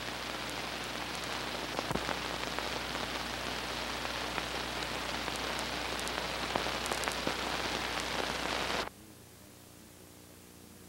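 Steady hiss and crackle of an old film soundtrack, scattered with clicks over a faint low hum. It cuts off abruptly about nine seconds in, leaving only a faint hiss.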